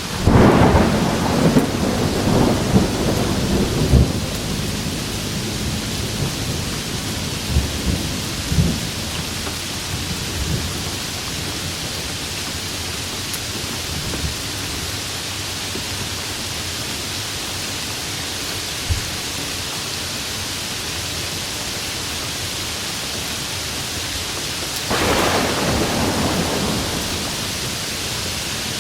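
Rain falling steadily in a thunderstorm. A crackling thunderclap rumbles for about four seconds at the start, with a few fainter rumbles a few seconds later, and another roll of thunder comes near the end.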